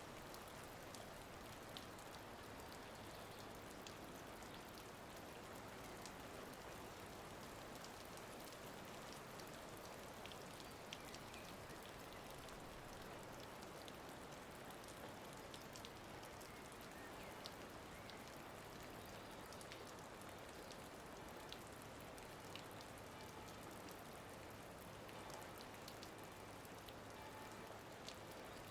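Faint, steady rain-like hiss with scattered soft ticks throughout, like light rain falling.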